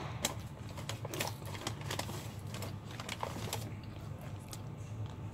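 Close-up chewing of crispy KFC fried chicken: rapid crunchy clicks and crackles for the first three and a half seconds, easing off after that, over a steady low hum.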